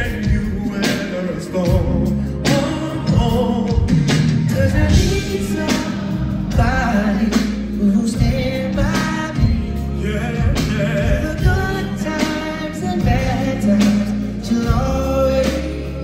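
Live R&B ballad performance: a male singer sings into a microphone over the band, amplified through the venue's sound system.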